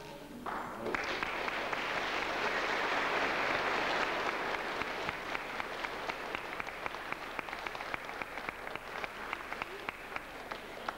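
Church congregation applauding: the clapping starts about half a second in, swells quickly to a full round of applause, then thins out into scattered individual claps near the end.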